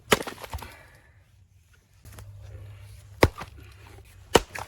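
Hard, sharp blows of a striking tool splitting an ash log lengthwise: one right at the start, then two more about three and four seconds in, each followed by a smaller knock.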